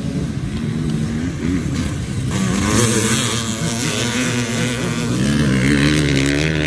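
Several off-road dirt bikes racing past, their engines revving hard with several overlapping, shifting pitches. It gets louder as the bikes come close, peaking twice.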